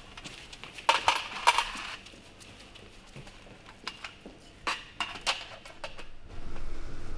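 Footsteps clicking on a hard floor: a few sharp steps about a second in and more around four to five seconds. Near the end a low steady rumble sets in.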